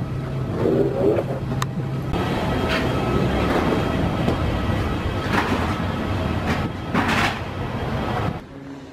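Steady machinery rumble and hiss of a parked airliner's cabin and jet bridge, with a low hum and a few louder rushing swells; it cuts off suddenly near the end.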